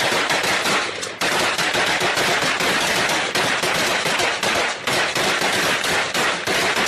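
Sustained automatic gunfire: dense, overlapping shots from several guns firing at once as suppressive fire, with a brief break about a second in.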